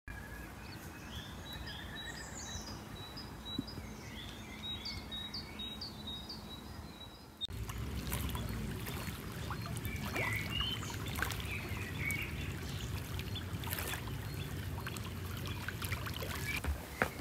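Birds calling over quiet outdoor ambience; about seven and a half seconds in the sound switches to small waves lapping and splashing against shore stones, louder, with birds still calling.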